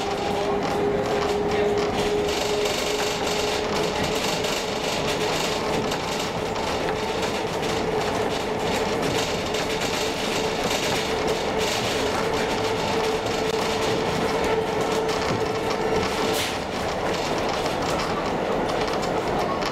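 Narrow-gauge heritage train running along the track, heard on board: a steady rolling rumble of wheels on rail. A steady whine rises slightly in pitch and then fades out about three-quarters of the way through.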